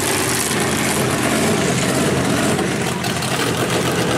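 Lifted mud truck engine running steadily, a loud, low engine sound under a wash of noise.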